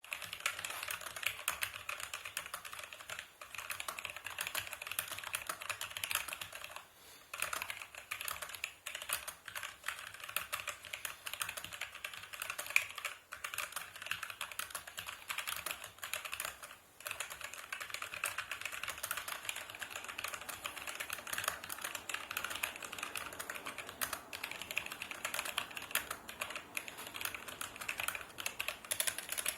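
Typing on a Logitech G413 mechanical keyboard with Romer-G switches: a fast, continuous run of key clicks, broken by a few short pauses.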